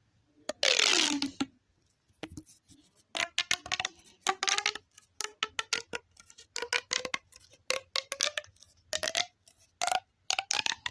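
Small plastic pop tube being stretched and squeezed: a loud sweep falling in pitch about half a second in, then a long run of quick clicking pops with a hollow tone as its ridges snap open and shut.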